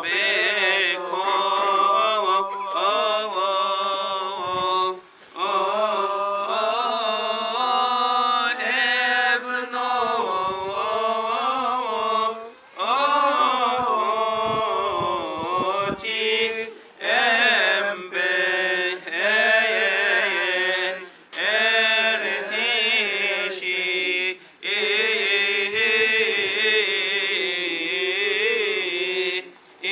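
Unaccompanied Coptic Orthodox liturgical chant: voices sing long, melismatic phrases a few seconds each, with short breaks between them.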